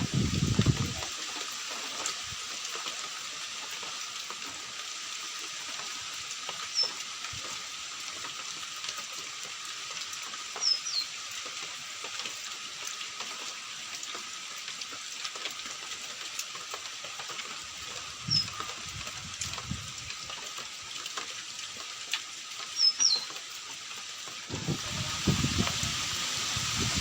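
Steady hiss of water, with a bird giving short, high chirps every few seconds. A low rumble comes in near the end.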